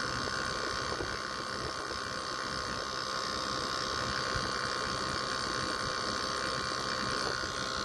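Panasonic inverter air conditioner's compressor running steadily during a compression test, pumping the pressure up: an even hum with a steady high whine.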